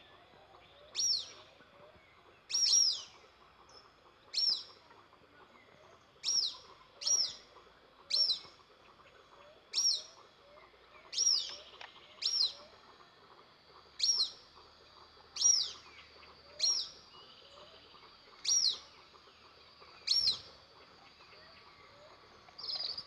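A bird calling over and over, short sharp chirps that drop quickly in pitch, one every second or two.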